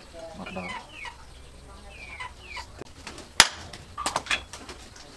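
Chickens clucking in short falling calls. A single sharp hammer blow about three and a half seconds in is the loudest sound, followed by a few lighter taps.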